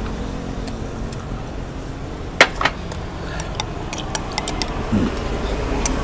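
Spoons and a drinking glass clinking against ceramic bowls and a table: scattered sharp clinks, the loudest about two and a half seconds in and a quick run of them about four seconds in, over a low steady rumble.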